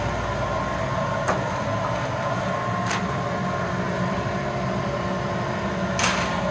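A steady mechanical drone with a few fixed tones, broken by three sharp clacks, the last the loudest near the end, as the wire shelves of a print drying rack are handled.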